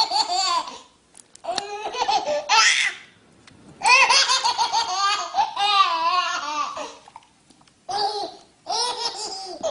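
A baby laughing hard in five or so high-pitched fits, each a string of quick laughs, with short pauses between them.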